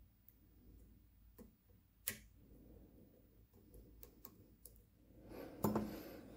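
Faint, scattered metallic clicks of lock picks and a tension tool working the pins of an ASSA Twin 6000 high-security lock cylinder, the sharpest about two seconds in. Near the end comes a louder, longer scrape as the tool moves.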